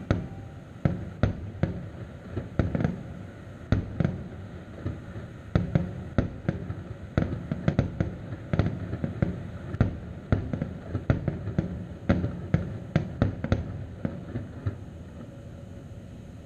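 Aerial firework shells bursting in a rapid, irregular series of bangs. The bangs thin out and stop near the end.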